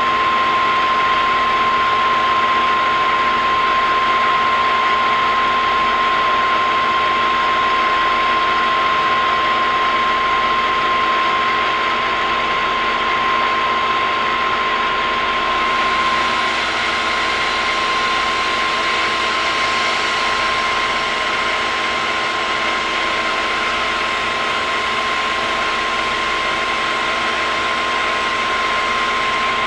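CNC milling machine running a test pass with an 80 mm fly cutter over an aluminium block: a steady mechanical run with a high, even whine, and a brighter hiss that joins about halfway through.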